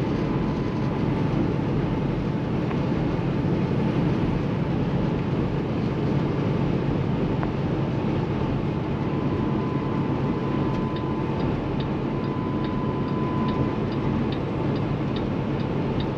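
Steady in-cab drone of a 2016 Kenworth T680 semi truck cruising at highway speed: the Paccar MX13 inline-six diesel running under a light load, mixed with tyre and wind noise. A faint, regular ticking runs through the last few seconds.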